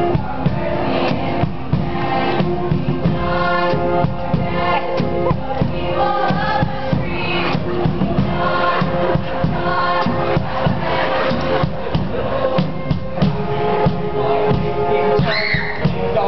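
Music with group singing over a steady beat.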